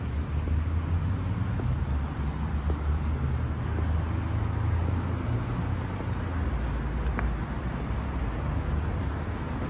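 City street traffic, with a nearby motor vehicle's engine giving a steady low rumble.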